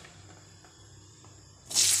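Cubed raw potatoes dropped into hot oil in a kadai: a sudden loud sizzle starts near the end, after a quiet stretch with only a faint low hum.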